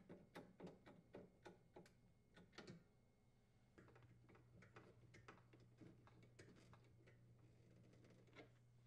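Faint, quick clicking of a hand screwdriver threading the mounting screws of an ice machine's cutting grid, about three clicks a second at first, then sparser and fainter.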